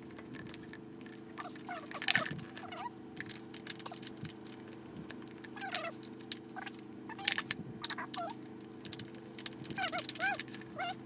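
Clicks and knocks of the plastic parts of an electric fan's base being handled and fitted together, with short squeaks a few times, over a steady low hum.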